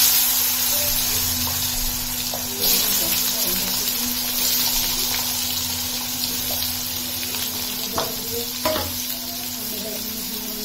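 Potato pieces frying in hot oil with cumin in a steel kadhai: a sudden loud sizzle as they go in. It grows louder about three seconds in as more pieces are added, then settles into a steady sizzle. Two light knocks come near the end.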